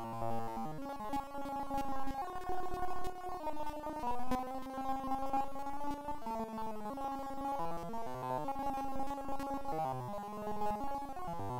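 Background music: sustained synthesizer-like chords that change every second or so.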